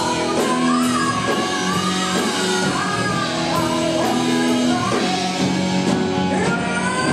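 Live rock band playing: a male singer singing into a microphone over electric guitars and drums, with regular cymbal strikes.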